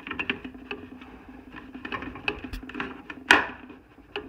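Steel pry tool scraping and clicking against an RV furnace's combustion wheel and motor shaft as the wheel is levered off, stuck where its set screw binds on the shaft. There are many small scrapes and one sharp knock about three seconds in.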